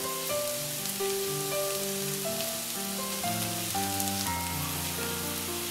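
Onions, green chillies and crumbled boiled potato sizzling in oil in a pan, under background music of held notes that change every half second or so.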